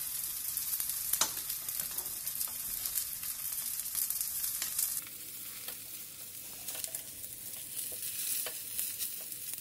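Galette with egg and cheese frying in butter in a pan: a steady sizzle, with a few light clicks of a knife and wooden spatula against the pan as the edges are folded in. The sizzle drops quieter about halfway through.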